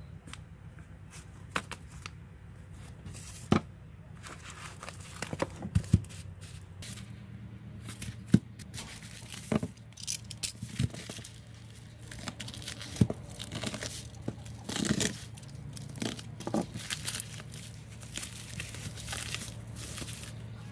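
Hands working on a broken Oppo A3s smartphone: scattered small clicks, taps and short scraping, peeling sounds as parts are handled and pried, busiest about halfway through, over a steady low electrical hum.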